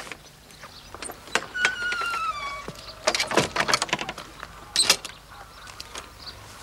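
Wooden barn door being shut: its hinge squeaks in one falling squeal about two seconds in, then the door and its latch rattle, with a sharp clunk near five seconds.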